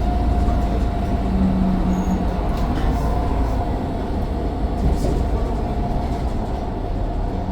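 Mercedes-Benz Citaro O530 bus running, a steady low drone with a steady high whine from its turbocharger over it.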